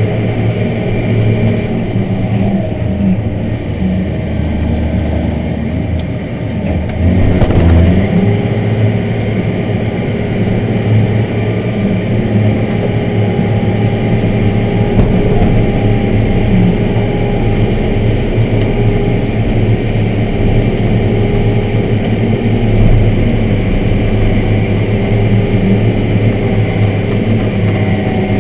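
Big farm tractor's diesel engine running steadily under load, heard from inside the cab while it pulls scraper pans. There is a louder surge about seven seconds in.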